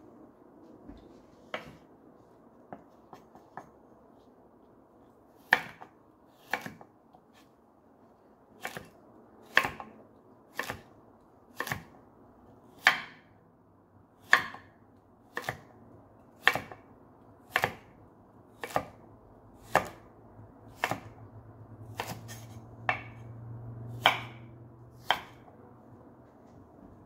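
Kitchen knife chopping peeled cucumber strips into cubes on a wooden cutting board: single knocks of the blade on the board, about one a second, after a few lighter taps at first.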